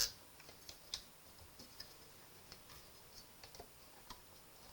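Sparse small clicks and taps from the mechanism of a vintage White 1477 sewing machine being worked by hand while it is stiff with old dried grease. There is a sharp click at the start, another about a second in, then a few faint ticks.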